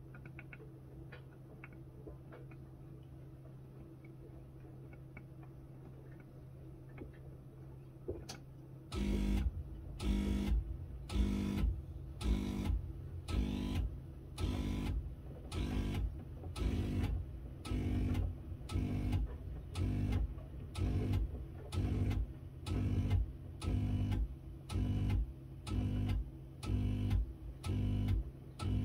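Miele W1 washing machine humming steadily, then about nine seconds in a loud rhythmic pulsing starts, about one and a half to two pulses a second.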